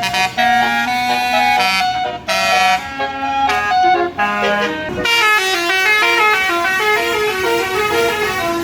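Tour bus basuri horn, a multi-trumpet air horn, playing a tune: held notes with a couple of short breaks, then from about halfway a quicker run of notes stepping up and down.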